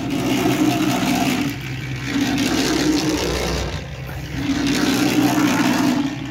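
Electric drum mixer running with a batch of cement-sand masonry mortar in it: a steady motor hum with a churning sound that swells and fades about every two seconds as the drum turns.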